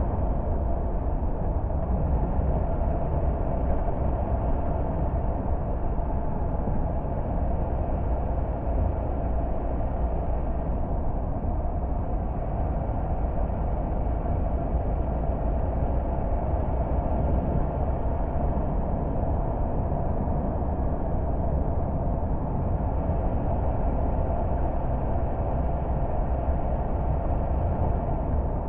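A car driving along a road: engine and tyre noise carry on steadily with no distinct events.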